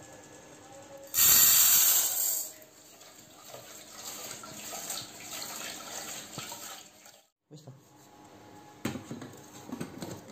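Rice being rinsed in a rice-cooker pot under a running tap: running water and grains swishing in the pot, with a loud rush of water about a second in. Near the end come a few knocks as the pot is handled at the cooker.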